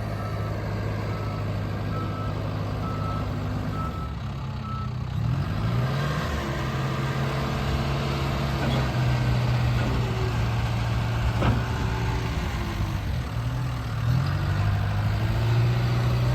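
John Deere 310K backhoe's diesel engine running, with a short high beep repeating about once a second for the first few seconds. After about five seconds the engine speeds up, and its pitch dips and recovers twice as it takes load.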